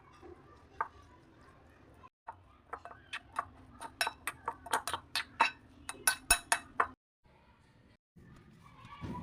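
Kitchen utensils clinking: a run of sharp clicks that comes faster and louder from about two seconds in, then stops abruptly about two seconds before the end.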